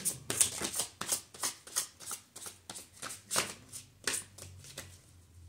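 Tarot cards being shuffled by hand: a run of short papery strokes, about three a second, growing fainter near the end.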